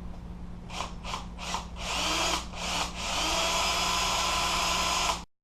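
Power drill triggered in several short bursts, then run steadily for about two seconds with a rising then level whine. It cuts off suddenly near the end.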